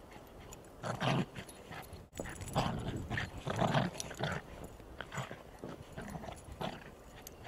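Two Bichon Frise dogs play-fighting in the snow close to the microphone: irregular short bursts of dog growling and scuffling. They are loudest about a second in and again from about two and a half to four and a half seconds in.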